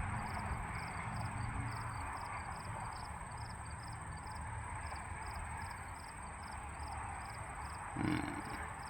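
Outdoor ambience: a steady hiss, with a faint chirp repeating about twice a second over a steady high whine, typical of insects such as crickets. A short low sound comes near the end.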